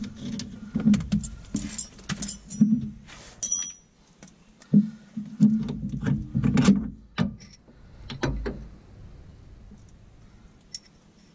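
Hand tools and loose metal parts clinking and knocking against the front suspension of a 2003 Ford F-350 while its worn sway bar links are being removed. The clinks are sharp and irregular, some ringing briefly, and they thin out about eight seconds in.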